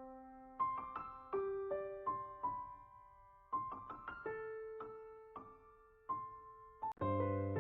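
Slow, soft solo piano music: single notes and small chords struck a few at a time, each left to ring and fade. About seven seconds in, a fuller chord with lower notes comes in.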